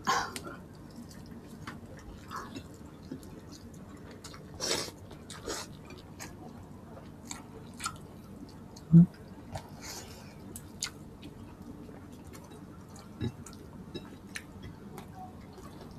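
Close-up chewing of food eaten by hand, with many small scattered mouth and finger clicks. A short, loud thump about nine seconds in and a fainter one a few seconds later.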